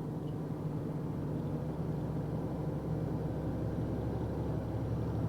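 Box truck's engine running steadily while driving: an even, low drone with no change in pitch.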